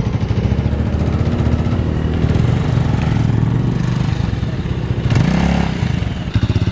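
Motorcycle engine running close to the microphone with a rapid, steady firing beat; the engine note shifts briefly about five seconds in.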